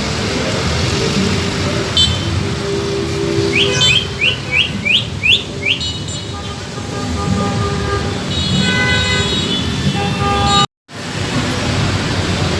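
Cucak ijo, a green leafbird, singing: a quick run of six rising whistled notes, followed by longer steady held tones, over a constant background hiss. The sound drops out completely for a moment near the end.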